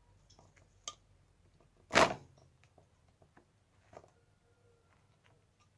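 Small screwdriver and plastic and metal parts of a steam cleaner being worked by hand: a few faint clicks, with one louder knock about two seconds in.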